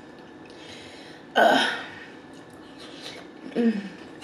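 A woman's short, loud throat-clearing cough about a second and a half in. Near the end comes a brief hummed "mm" with a falling pitch as she eats.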